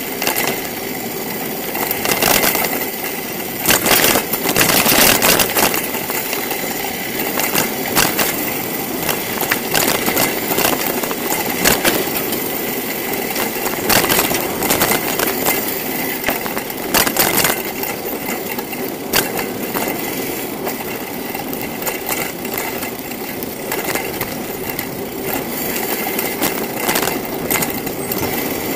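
Riding noise from a camera on a moving bicycle: tyres rolling on pavement and the bike rattling, with frequent sharp knocks over bumps, heaviest a few times along the way.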